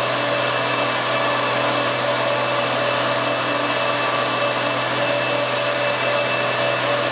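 FMC John Bean 1087 airblast orchard sprayer working behind a tractor: the sprayer's fan and the tractor engine make a steady, even drone while it blows spray into the trees.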